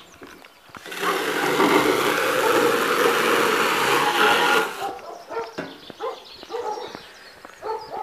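A loud, even rushing noise for about four seconds, then an animal's short calls repeating a few times a second.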